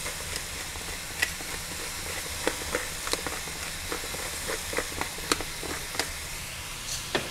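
Sliced mushrooms, onions and butter sizzling in a stainless steel sauté pan over a medium-high gas flame, a steady hiss dotted with irregular sharp pops and crackles.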